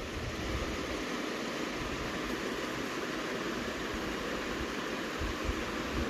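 Steady background hiss of room noise, with a few soft low bumps near the end.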